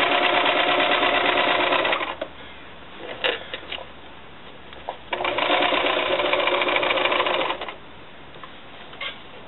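Electric sewing machine straight-stitching a seam through fabric in two runs of a few seconds each. Between the runs it stops while the fabric is adjusted, leaving a few light clicks and rustles.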